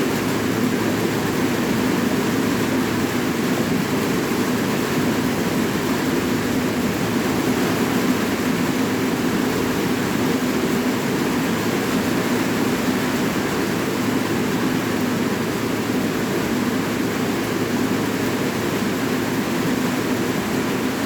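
Steady rain, an even, unbroken rush with no separate drops standing out.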